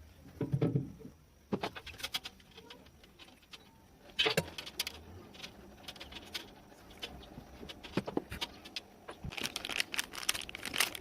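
Clicks and clinks of small hard parts or tools being handled, in bursts: a low knock about half a second in, then clusters of sharp clicks around a second and a half in, around four seconds in, and again near the end.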